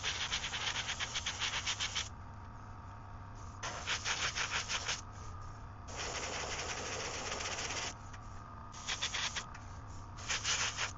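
Airbrush spraying paint in several bursts of hiss, some rapidly pulsing and one held steady for about two seconds in the middle, with short pauses between, over a faint low steady hum.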